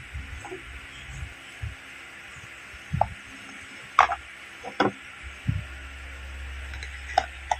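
Small plastic toy pieces clicking and knocking as a toy mini fridge and its miniature drinks are handled: about six separate sharp taps, with a low steady hum setting in just past the middle.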